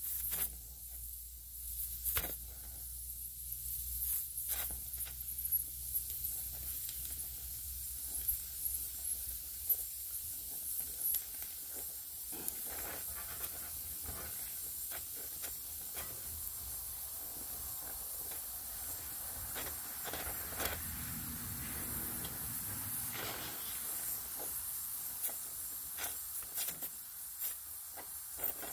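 Welding torch hissing steadily at the weld, with scattered crackles and pops from the molten metal.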